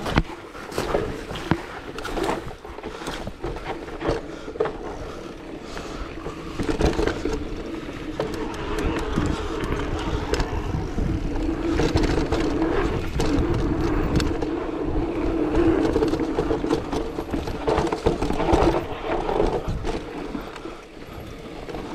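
Electric mountain bike ridden down a rough woodland trail: tyres rolling over dirt, with frequent sharp knocks and rattles from the bike over bumps. A wavering hum runs underneath, louder through the middle stretch.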